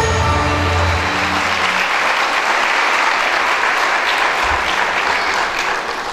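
An audience applauding, while the recorded dance music dies away in the first two seconds.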